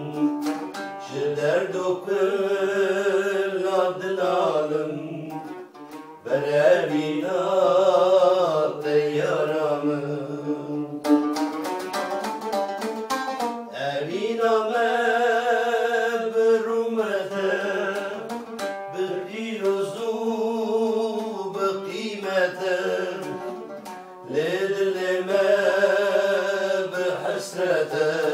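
Male voices singing with wavering phrases to an oud accompaniment. A short run of quick oud plucking comes between vocal phrases about eleven seconds in.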